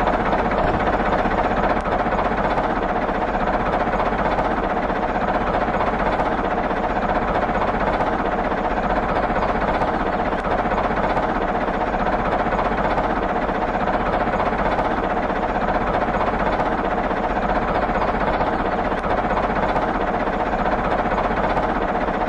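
Small electric motor of a homemade toy tractor running steadily: an even whirring hum with one held whine, unchanging throughout.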